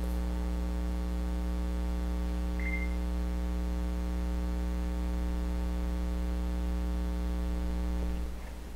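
Steady electrical mains hum with a buzzy stack of overtones, which cuts off abruptly about eight seconds in. A short high beep sounds about two and a half seconds in.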